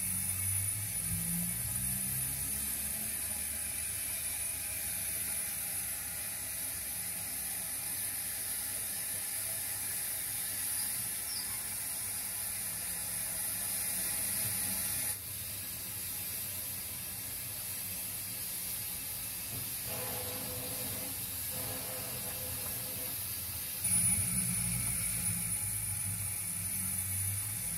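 0 gauge model steam locomotives running slowly around a layout's shed yard: a steady hiss over low mechanical running noise, which gets louder again near the end.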